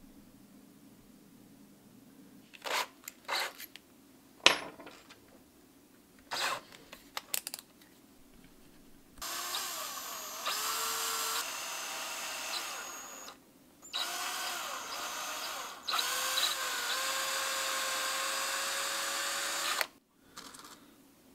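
Power drill boring into the nose of a carved pine crankbait, run in three stretches of a few seconds each, its motor speed dipping and then holding steady. Before it come a few sharp clicks and one loud knock from handling the lure and its plastic lip.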